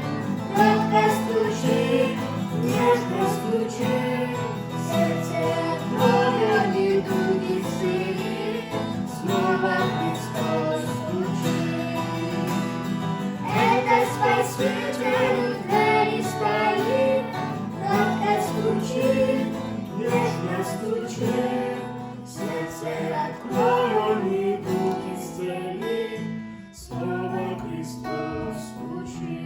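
Hymn music: acoustic guitar accompaniment with a melody line over it, dipping briefly near the end.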